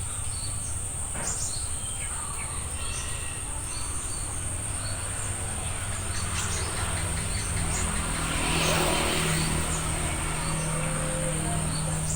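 Outdoor rural ambience: a steady high-pitched insect drone with short, scattered bird chirps. Partway through, a low engine-like hum swells up and holds steady to the end.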